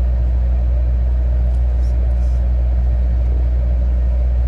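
A steady low hum, unchanging in level, with no other sound rising above it.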